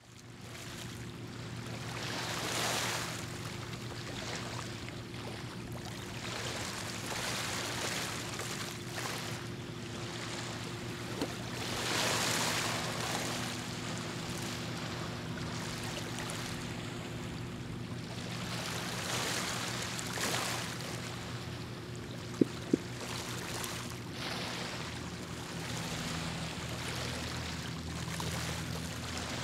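Water washing and lapping in swells every few seconds over a steady low engine drone, with two sharp clicks about three-quarters of the way through.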